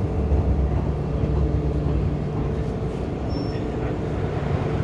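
MTR M-Train electric multiple unit heard from inside the carriage, running with a steady low hum and rumble as it draws into a station. A faint, brief high squeak comes about three and a half seconds in.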